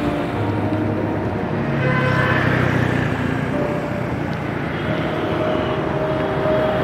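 Street traffic: engines of passing vehicles over a steady wash of road noise.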